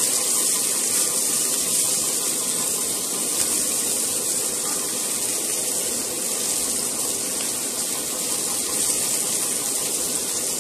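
Sliced onions sizzling in hot oil in a stainless steel pressure cooker, being sautéed and stirred with a wooden spatula: a steady frying hiss.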